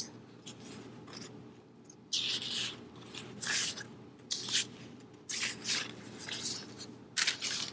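Paper sticker sheets and their clear plastic sleeve being handled and shuffled, in a series of short rustles and crinkles about a second apart, starting about two seconds in.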